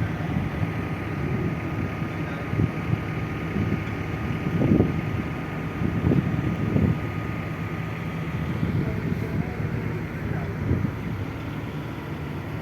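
An engine running steadily at a constant speed, with a few short louder noises near the middle.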